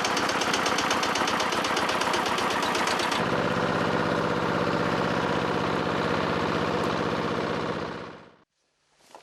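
An engine running steadily with a rapid, even firing beat. Its sound changes about three seconds in, then it fades out shortly before the end.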